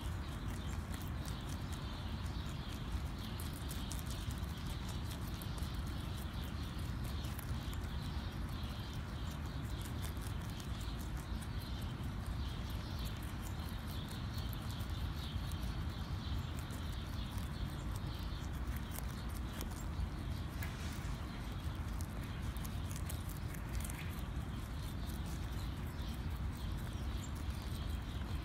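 Rabbits chewing lettuce and carrots: a dense, continuous run of quick crunching clicks, over a steady low rumble.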